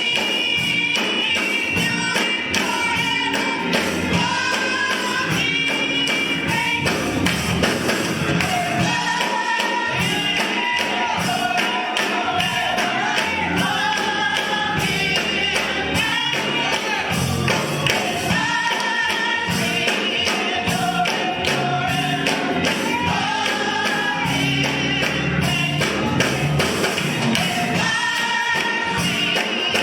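Gospel music: several voices singing over a band with a steady beat.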